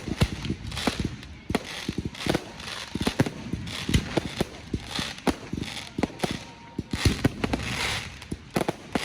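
Fireworks display: a rapid, irregular barrage of bangs and booms, several a second, with hissing crackle between them.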